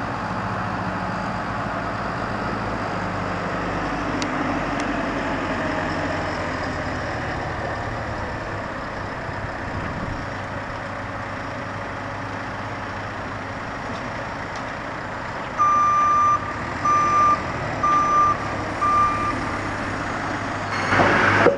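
JCB telehandler's diesel engine running steadily as it handles logs, then its reversing alarm sounding four beeps a little over a second apart. A loud clatter follows near the end.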